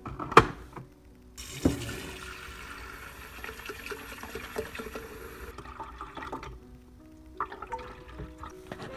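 Kitchen faucet running into a glass coffee-maker carafe in a stainless steel sink. The running water stops about halfway through, followed by the clink of the carafe and water being poured into the coffee maker's reservoir, over background music.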